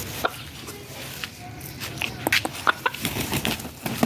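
Rooster clucking in short, scattered calls, with its wings flapping near the end.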